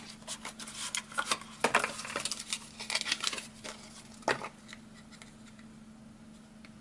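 Hands unpacking and opening a blush palette: a run of small clicks and light rustles for about four seconds, one sharper click near the end of them, then only a faint steady low hum.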